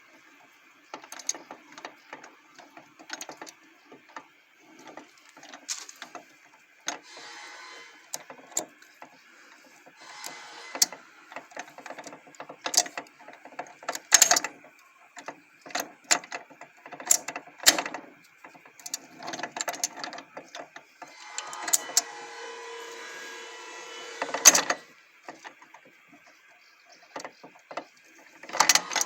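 Overhauled Volkswagen Lupo 3L gearbox being shifted through its gears: a long series of irregular clicks and clunks from the shift mechanism. A few stretches of steady noise run one to three seconds at a time between the clunks.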